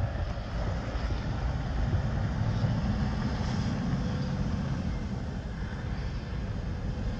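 Diesel engine of a semi tractor hauling a tanker trailer running as the truck pulls away and turns onto the road, a steady low rumble that fades slightly over the last few seconds.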